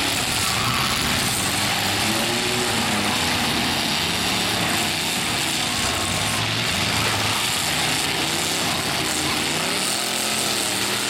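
Several demolition derby pickup trucks' engines revving together over a constant din, their pitches rising and falling as they push and ram.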